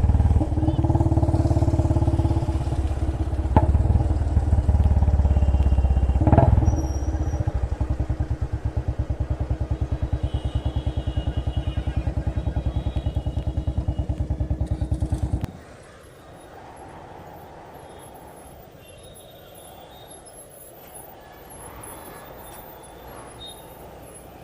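A vehicle engine running with a fast, even low pulse, cutting off abruptly about two-thirds of the way through; only faint background remains afterwards.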